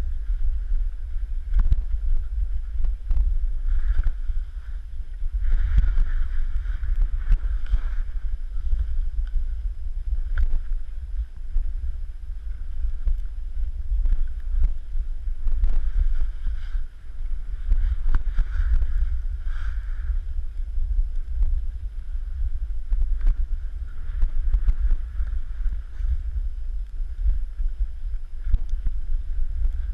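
Steady wind rumble on the microphone of a moving camera, with the swish of snowblades sliding through soft snow, swelling and fading every few seconds, and occasional short knocks.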